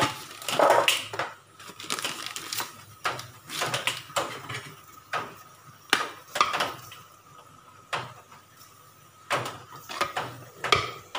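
Newspaper crinkling as it is pulled off a pot in the first second or so. Then a metal spoon scrapes and knocks against the metal pot at irregular intervals as the steamed biryani rice is turned over.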